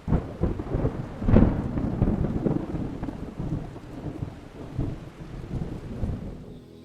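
A deep, uneven rumbling noise that surges loudest about a second and a half in, then dies away over the next few seconds.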